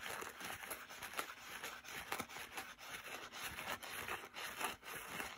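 A fingernail scraping along the slots of a small metal worm gear on a model locomotive, working out old dried grease: a continuous run of faint, irregular scratchy clicks.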